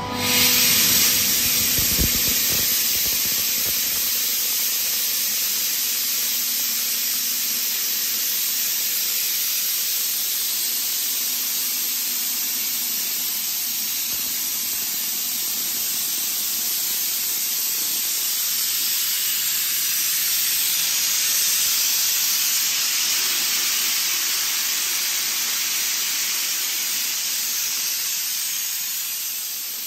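Kaeser ASD 37 22 kW screw air compressor switching from idle to on load: a loud rush of air comes in suddenly at the start, then holds as a steady hiss while the machine compresses against a closed outlet valve.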